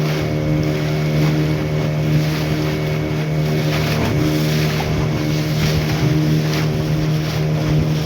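Motorboat engine running steadily at an even speed, with a constant drone and no change in pitch.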